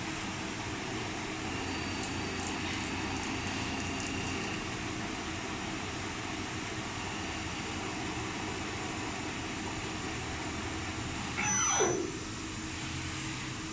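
VLB 12i CNC machine running steadily while machining a test gearbox part, a constant machine hum with several steady tones. About twelve seconds in, a brief louder whine falls quickly in pitch, as a drive slows down.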